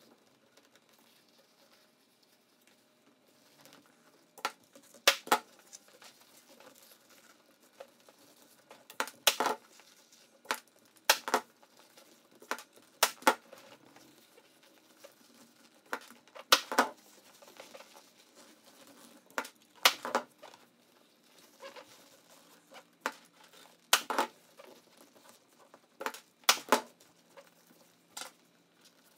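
Staple gun firing staples through vinyl upholstery into a seat's wooden base: about a dozen sharp snaps a few seconds apart, several in quick pairs, starting about four seconds in. Quieter rustling of the vinyl being pulled and folded runs between the snaps.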